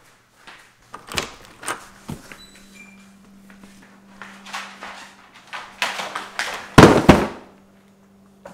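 A series of short knocks and rustles, with one loud, heavy thud about seven seconds in, over a faint steady hum.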